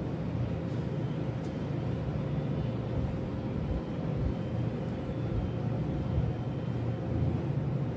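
Steady low rumble with a faint constant hum: background machinery noise of an operating room, such as ventilation or air conditioning. The syringe drawing urine from the bladder is not heard over it.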